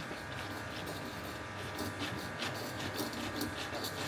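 Hand socket ratchet working a 15 mm bolt: a run of quick, irregular light clicks and tool rattles over a faint steady hum.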